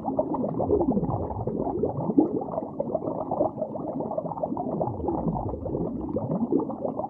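A muffled, dull-sounding intro sound bed with several slow sweeps up and down in pitch.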